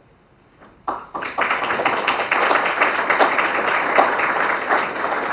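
Audience applauding, starting about a second in after a brief hush and easing off near the end.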